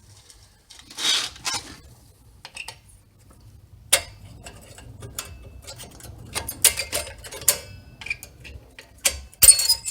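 Small steel brake pad hardware clips being handled, clicking and clinking lightly against each other, with a brief rustle about a second in.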